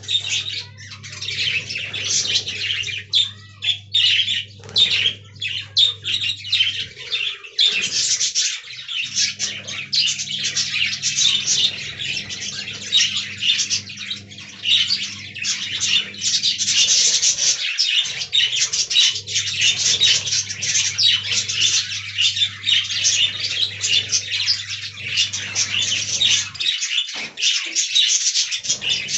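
Budgerigars chattering and warbling without a break, a dense stream of rapid chirps and squawks. A low steady hum comes and goes beneath them.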